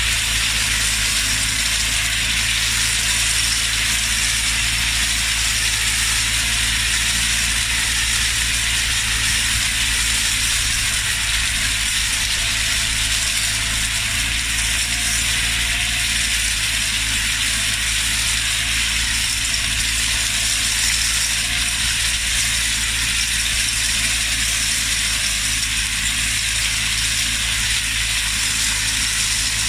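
Sugarcane leaf remover working along a cane row: a steady, dense mechanical rattle as it strips dry leaves from the standing stalks, over a steady low running hum.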